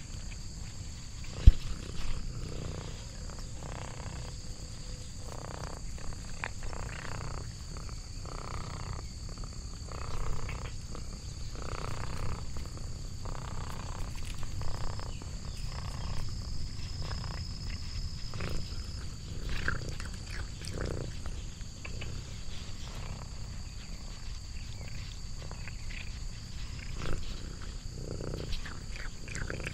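Orange tabby cat eating treats taken from a person's fingers: repeated irregular chewing, smacking and crunching with a low steady rumble under it. There is one sharp click about a second and a half in.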